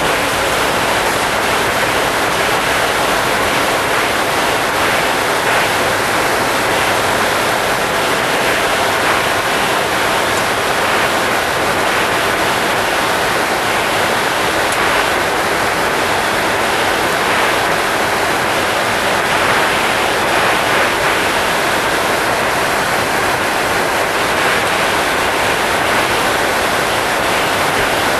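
Steady rushing noise inside a Boeing 747 cruising at 33,000 feet: air rushing over the airframe together with the engines' hum, even and unbroken throughout.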